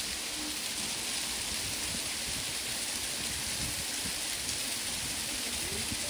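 Steady hiss of rushing water in a mountain stream, with irregular low rumbling underneath.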